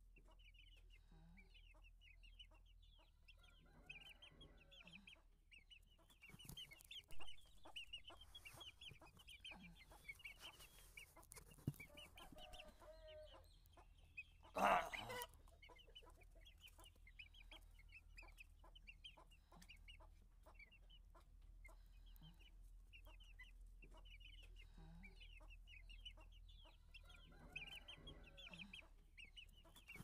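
Aseel chicks cheeping: a steady run of short, high peeps, several a second, with now and then a lower cluck. There is a brief louder sound about 15 seconds in.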